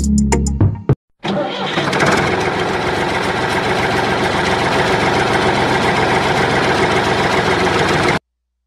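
Engine running steadily with a dense, rapid chug. It starts abruptly about a second in, after background music breaks off, and cuts off suddenly shortly before the end.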